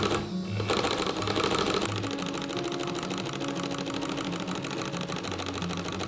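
Old restored sewing machine stitching at a rapid, even rate, with a brief pause just after the start. Faint guitar music underneath.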